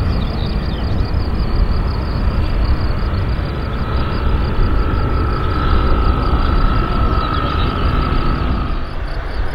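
Jet engines of an Airbus A320-family airliner running as it rolls along the runway: a steady low rumble with a thin whine that grows more prominent about halfway through.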